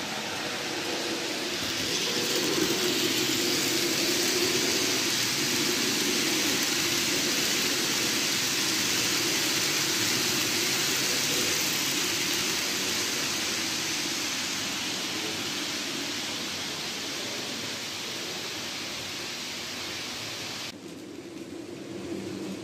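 N gauge model train running along the track, a steady hissing whir of motor and wheels. It swells about two seconds in as the train nears and slowly fades as it passes, then drops suddenly to a quieter hiss near the end.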